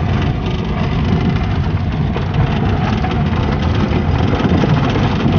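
Car engine running steadily with a low drone.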